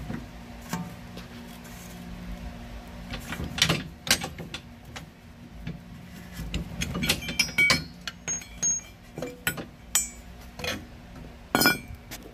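Scattered metallic clinks and knocks of steel suspension bolts and the rear shock bracket plate being handled. The clinks are busiest in the middle, with one louder knock near the end, over a low steady hum.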